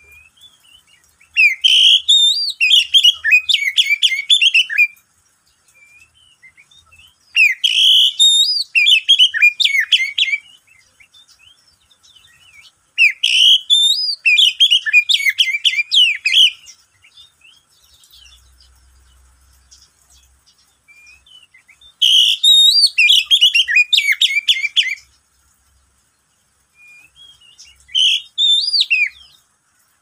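Oriental magpie-robin (kacer) singing: five loud phrases of rich, varied whistled song, each about three seconds long, separated by short pauses.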